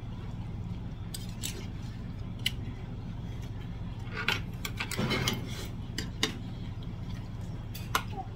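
Stainless-steel spoon clinking and scraping against stainless-steel rice bowls as rice is scooped from one bowl into another. The sharp clinks come now and then, with a busier patch a little past the middle, over a steady low hum.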